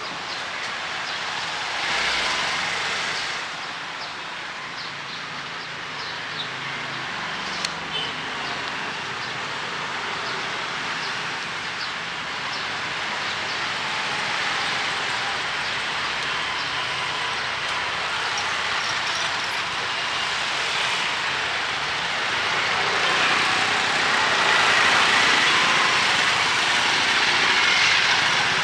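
Steady hiss of rain and wet-street ambience, with a few light ticks in the first seconds, swelling louder over the last few seconds.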